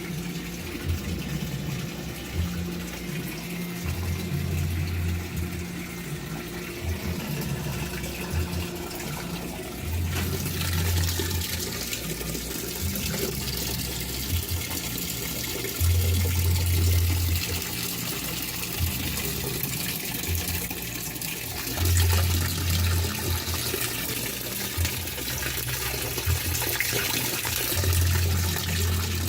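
Whirlpool heavy-duty top-load washing machine filling with water, the inflow rushing steadily and getting stronger about ten seconds in. A low hum comes on for a second or so roughly every six seconds.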